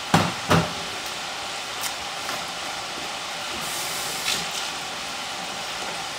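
Pre-cooked fries frying in hot oil in their second, high-temperature cook: a steady bubbling sizzle. Two short knocks about half a second apart right at the start.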